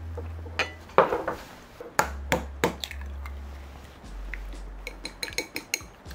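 Utensils clinking and knocking against dishes and cookware: a run of sharp, irregular clicks, loudest about a second in.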